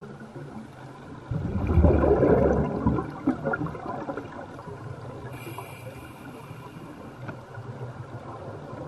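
Underwater bubbling from a scuba diver's exhaled breath: a loud burst of bubbles about a second in lasting a second and a half, then a lower steady underwater wash.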